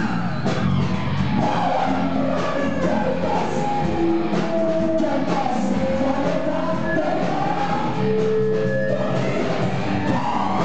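Rock band playing loud and steady, with a singer's voice over the instruments.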